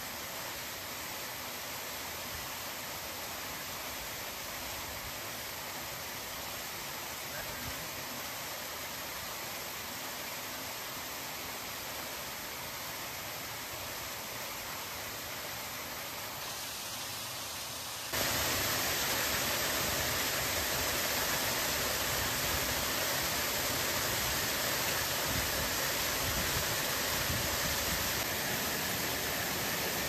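Water pouring over a fountain's cascade wall into its pool, a steady rush. About two thirds of the way in it suddenly becomes louder and closer.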